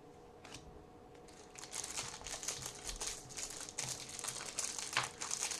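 Plastic wrapper of a jumbo trading-card pack crinkling as it is handled and opened: quiet for about the first second and a half, then continuous crinkling with sharp crackles, the loudest about five seconds in.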